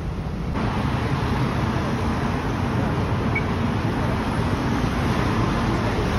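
City road traffic: cars, taxis and motor scooters passing through an intersection, a steady rushing noise that grows louder about half a second in.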